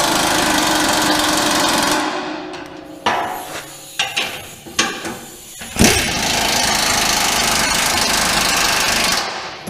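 Impact wrench hammering bolts tight in two long bursts of about three seconds each, with a few metallic clanks in between.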